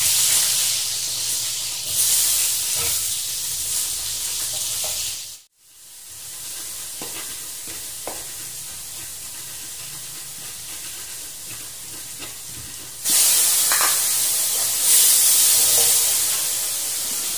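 Diced eggplant tipped into hot oil in a wok sizzles loudly while being stirred with a metal spatula. The frying quietens for a while, with a few taps of a stone pestle and mortar, then loud sizzling returns near the end as steam rises from the wok.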